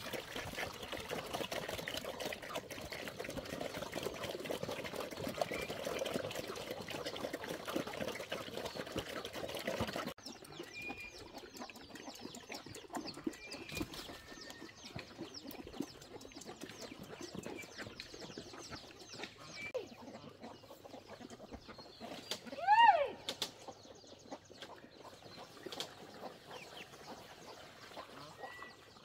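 Farmyard sounds: about ten seconds of dense, wet-sounding clicking and splashing, then an abrupt change to quieter scattered clicks with a few short high chirps. About 23 seconds in comes one loud squawk that rises and falls.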